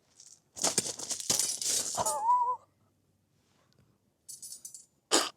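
Crinkling, crackling rustle of paper or a gift bag being handled and opened, lasting about two seconds. A brief pitched sound comes near its end.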